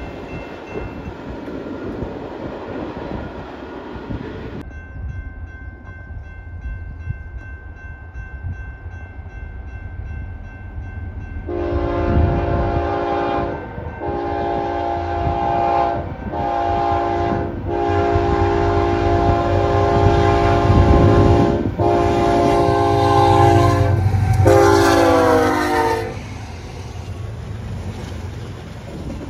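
A passing stack train's wheels rattle over the rails, then a crossing bell rings steadily. From about a third of the way in, a BNSF freight locomotive's air horn blows a run of blasts for the grade crossing, roughly long, long, short, long, and cuts off near the end. Under the horn, the diesel locomotives rumble louder as they reach the crossing.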